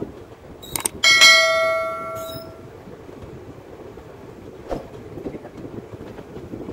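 A click and then a bell chime from a subscribe-button sound effect, ringing for about a second and a half before fading out. Underneath is the steady running noise of a moving passenger train, heard from the coach door.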